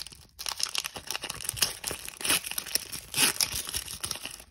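A foil Pokémon booster pack wrapper crinkling and tearing as it is pulled open by hand: a dense run of crackles, loudest about two and three seconds in.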